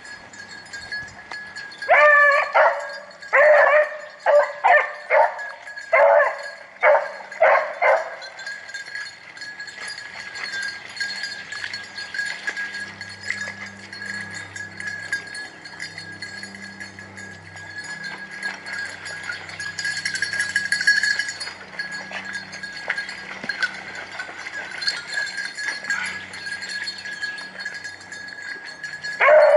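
Rabbit-hunting hounds baying on the trail of a running swamp rabbit: a run of about nine quick bays between two and eight seconds in, and another bay near the end. A steady high thin tone runs underneath.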